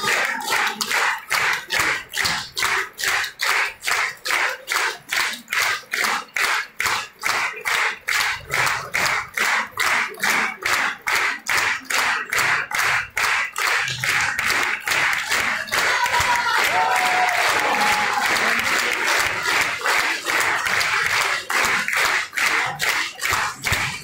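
Theatre audience applauding in rhythmic unison, about two to three claps a second. About two-thirds of the way through, the beat dissolves into ordinary applause with a few calls from the crowd, then the clapping falls back into rhythm.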